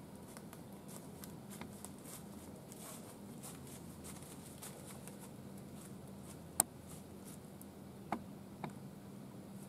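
Young whitetail buck walking through dry fallen leaves close by, its steps making faint, irregular crunching and rustling. A few sharper clicks stand out, the loudest about two-thirds of the way in and two more near the end.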